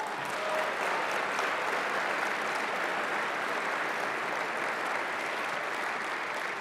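Audience applauding, a dense steady clapping that swells in at the start and holds.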